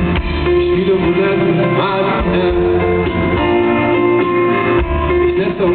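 Pop-rock band playing live in an arena, taken from the crowd: acoustic guitar, drums and keyboard, with a singing voice.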